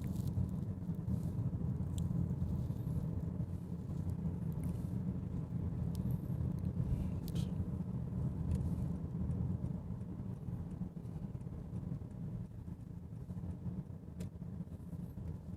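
Steady low road rumble heard inside the cabin of a 2018 Honda Accord driving along, easing off slightly near the end, with a few faint light ticks.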